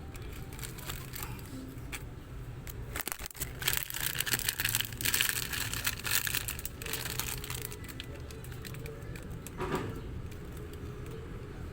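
Crinkling and rustling with scattered clicks, loudest for a few seconds in the middle, and a short burst of rustle near the end, over a low steady hum.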